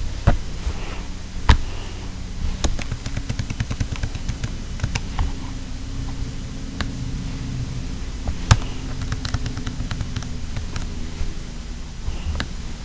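Scattered light taps and clicks from hands on a computer over a steady low hum. Three sharper knocks stand out: just after the start, at about a second and a half, and at about eight and a half seconds.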